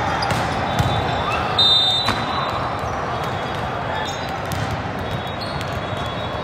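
Echoing din of a volleyball game in a large hall: the ball being struck and bouncing, and players' shoes squeaking on the court, over a background of many voices. A short, high squeak and a sharp hit come about two seconds in.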